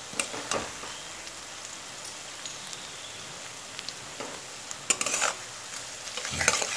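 Sliced onions sizzling steadily in hot mustard oil in a kadai while they are stirred with a metal spatula, which scrapes and knocks against the pan a few times, most loudly about five seconds in.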